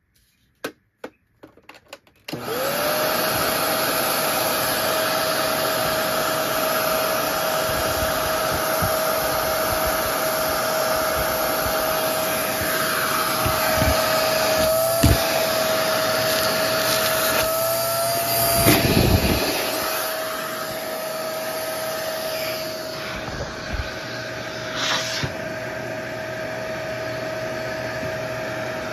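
Maytag Savvy upright vacuum cleaner switched on after a few clicks. Its motor spins up to a steady whine and keeps running, with a brief low rumble a little past the middle.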